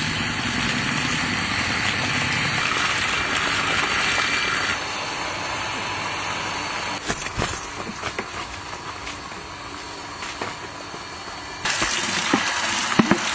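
Small electric centrifugal water pump running with a steady hum while water gushes from its outlet pipe and splashes onto the ground. Near the end the splashing gets louder as the stream pours into a plastic bucket.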